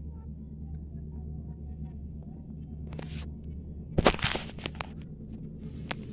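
Handling noise: a short rustle about three seconds in, then a sharp rustle and knock about four seconds in as a knit sleeve brushes against the phone, over a steady low hum.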